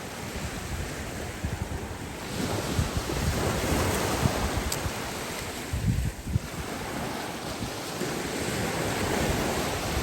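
Sea waves washing on a beach, swelling louder about two seconds in and again near the end, with wind buffeting the microphone in low rumbles.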